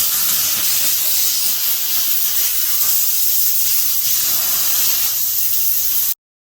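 McCulloch canister steam cleaner jetting steam from its nozzle: a loud, steady hiss that cuts off abruptly near the end.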